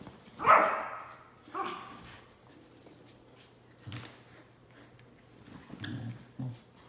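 Dogs barking during rough tug-of-war play over a plush toy: one loud bark about half a second in, a shorter one about a second later, then a few quieter short sounds near the end.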